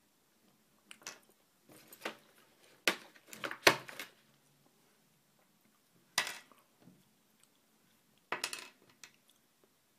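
Small plastic toy pieces being handled, knocking and clicking against each other and the table. A handful of separate sharp taps and short clatters come with quiet gaps between, the loudest a little before four seconds in.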